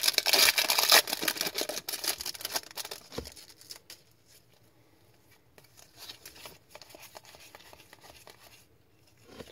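Foil trading-card pack wrapper being torn open and crinkled, loud and crackly for the first two or three seconds. After that come quieter light clicks and rustles of the cards being slid and flipped through in the hands.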